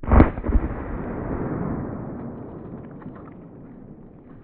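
A loud blast, with a second bang about half a second after it, then a long rumbling echo that fades over about three seconds.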